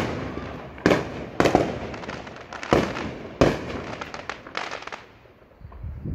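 Aerial fireworks bursting overhead: a string of sharp bangs at irregular spacing, each trailing off, growing fainter after about five seconds.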